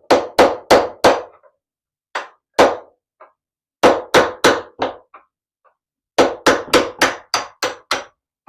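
Hammer tapping on a steel door hinge pin in clusters of quick sharp strikes: about four, a pause, two, then four more, and a fast run of about eight near the end. The hinge pin is being driven with a hammer and screwdriver.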